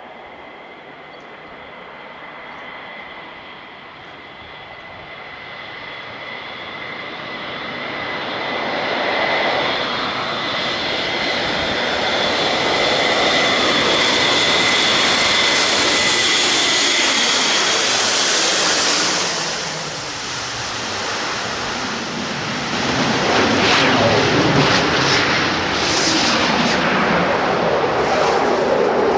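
Airbus A400M Atlas's four turboprop engines and eight-bladed propellers on a landing approach: a steady high whine over a deep drone that builds as the aircraft comes in low. It peaks with falling pitch as it passes overhead, then surges loud again near the end as it rolls along the runway.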